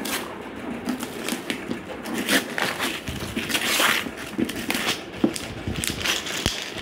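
Gift wrapping paper being ripped and crumpled by hand off a cardboard box: an irregular run of tearing rasps and crinkles, densest about halfway through.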